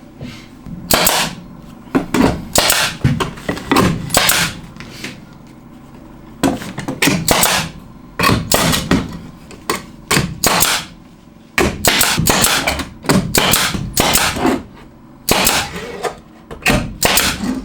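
Nails being driven into wood: repeated sharp impacts in quick runs of several a second, broken by short pauses.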